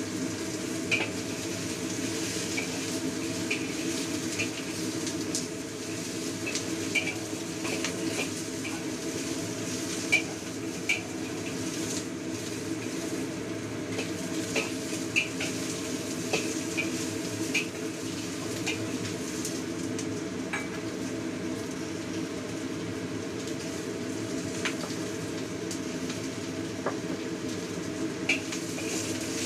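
Metal ladle and spatula scraping and clinking irregularly against a wok while meat pieces sizzle in it, over a steady low hum.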